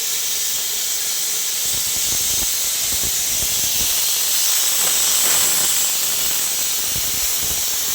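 Panasonic CNC plasma cutter's torch cutting metal: a steady, loud, high hiss with faint irregular crackle underneath.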